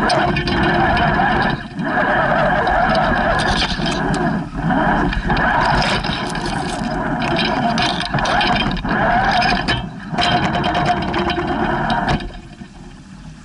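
Radio-controlled scale crawler's electric motor and geared drivetrain running under throttle. It breaks off briefly a few times and stops about a second before the end.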